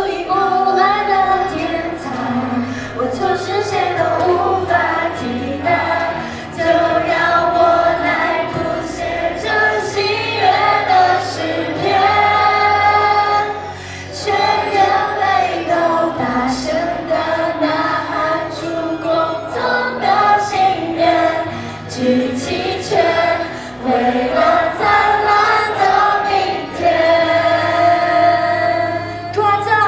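Live idol pop song: female vocals singing a melody over backing music with percussive hits.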